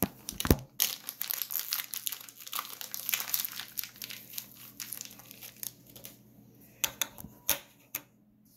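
Thin clear plastic bag crinkling and rustling as it is handled and opened to get a coin out, with a thump about half a second in and a few sharper crackles near the end.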